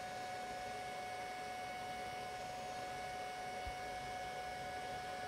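Faint steady electrical hum with a thin unchanging whine over low hiss.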